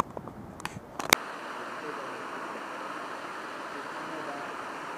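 Steady rushing of Tsusiat Falls, a waterfall pouring off a cliff into a pool, starting about a second in just after a sharp click.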